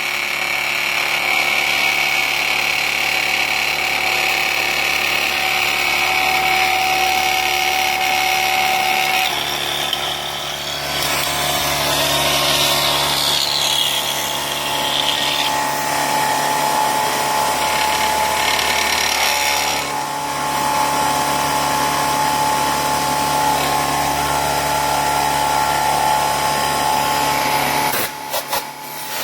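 Pratt & Whitney Tapemate C CNC mill machining aluminum: the spindle running and the cutter whining steadily through the cut, the tone changing about a third and two thirds of the way through as the toolpath changes, with a few sharp clicks near the end.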